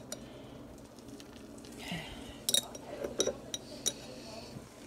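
Metal spoon clinking and scraping against a glass jar while scooping out minced garlic, with a few light clinks about two and a half to four seconds in.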